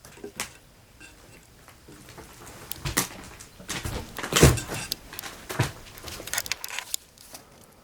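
Footsteps and creaks on old wooden beams and debris: scattered knocks and clicks, the loudest about halfway through, with a quick run of them near the end.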